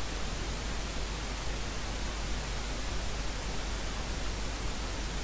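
Steady hiss with a low hum beneath it, the background noise of the narration microphone with no other sound.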